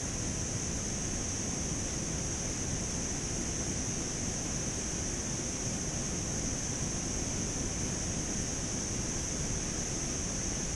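Steady rushing wind noise on the microphone, with a constant high-pitched hiss above it and no distinct events.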